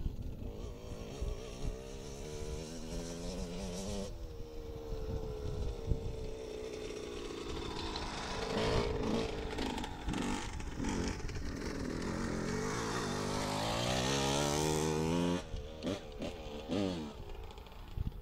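1992 Suzuki RM125 two-stroke dirt bike engine revving hard, with the pitch climbing and falling back as it shifts gear. Near the end there is one long climb, then the throttle shuts off suddenly, followed by a few short blips.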